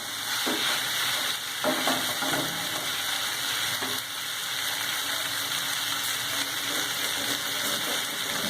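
Rice and chopped vegetables sizzling steadily as they stir-fry in hot oil in a pan over high flame, with a few stirring strokes in the first couple of seconds.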